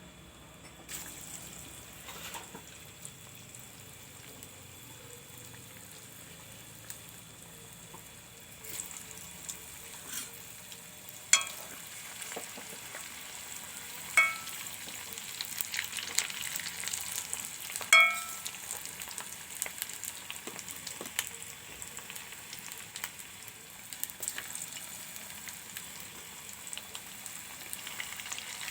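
Steady hissing and scraping of food being stirred in a metal cooking vessel, broken by three sharp ringing clinks of a spoon or spatula striking the rim: one about eleven seconds in, then two more within the next seven seconds.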